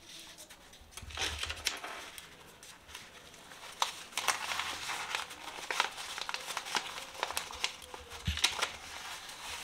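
A sheet of paper rustling and crinkling as it is rolled and folded by hand around a paratha wrap, in irregular crackles with small sharp ticks.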